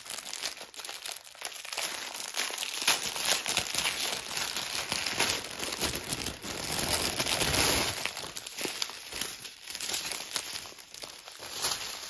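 Clear plastic crinkling: small sealed bags of diamond-painting drills being handled and pulled out of their outer plastic bag. A dense, continuous rustle that is loudest about two-thirds of the way through.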